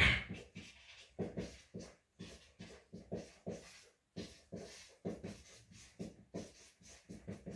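Marker pen scratching on a whiteboard as numbers are written, in short strokes about three a second, the first one the loudest.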